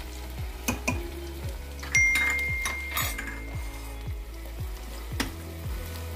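Sliced onions and whole spices sizzling as they fry in hot mustard oil over a high gas flame, with a steel ladle stirring and clinking against the pot in the first second. A short, bright ding rings about two seconds in.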